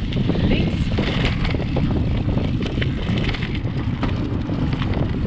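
Wind buffeting the microphone of a fork-mounted action camera and mountain-bike tyres rolling over the track, with many scattered sharp clicks and rattles.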